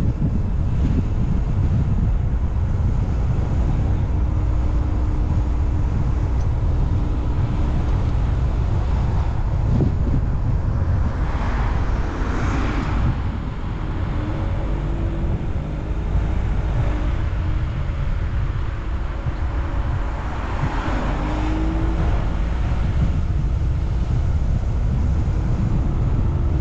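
A car driving, with steady low engine and road rumble and wind buffeting the microphone. Two louder swells of rushing noise rise and fall, about halfway through and again about three-quarters through.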